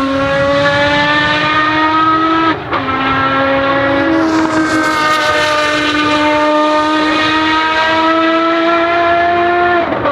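Ferrari FXX Evoluzione's naturally aspirated V12 at high revs under hard acceleration. The engine note climbs steadily and steps at each gear change, with a brief cut at the shift about two and a half seconds in.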